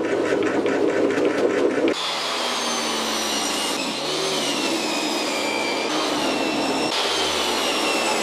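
Benchtop table saw running and ripping spruce boards: a steady motor whine that dips in pitch as the blade takes the load. The sound changes abruptly a few times.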